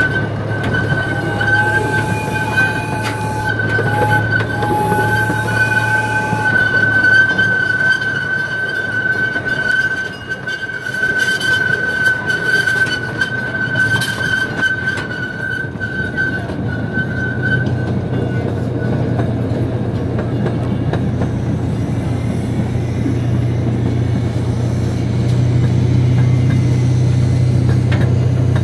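Miniature park train running along its track, heard from an open passenger car: a steady low engine hum under a high, steady wheel squeal that fades out past the middle, after which the engine grows a little louder.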